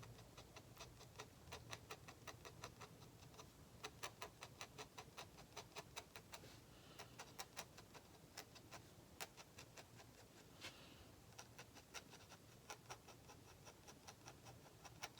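Faint, quick, irregular ticking of an ink pen nib dabbing short strokes on drawing paper, with an occasional longer soft scratch of the pen.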